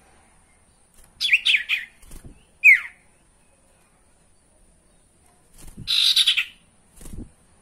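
Common iora calling: a quick run of chattering notes, then a single whistle sliding steeply down in pitch, and a few seconds later a harsher burst of rapid notes. A few soft low thumps come in between.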